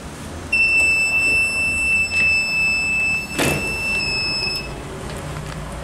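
Heat press timer buzzer sounding one steady high beep for about four seconds, the signal that the pressing time is up. A single knock from the press comes partway through.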